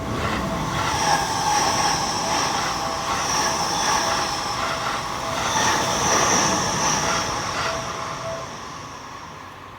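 A Seibu Line electric train passing over a level crossing, rumbling past with a high whine. The crossing's warning bell keeps ringing in a steady repeating pattern until about eight seconds in, and the train noise fades near the end.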